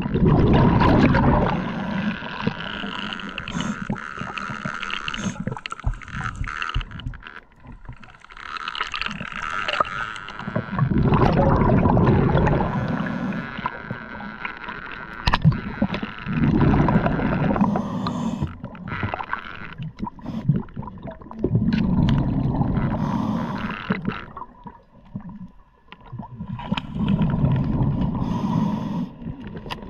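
Underwater noise as a spearfisher swims: water rushing and gurgling past the camera, rising and falling in swells every few seconds.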